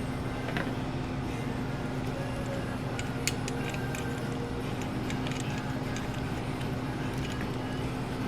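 Steady low electrical hum, with scattered light clicks and taps of small parts being handled on a workbench.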